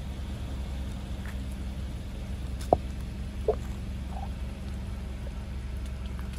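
Car creeping forward with its engine running low and steady while its tyre crushes a row of toothpaste tubes. There is a sharp crack about two and a half seconds in, then a short squeak about a second later as the tubes are squeezed and one splits open.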